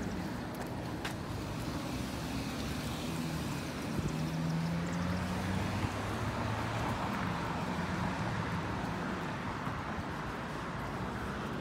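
City street traffic: cars driving by on the road, a steady low engine hum over tyre and road noise, a little louder around the middle.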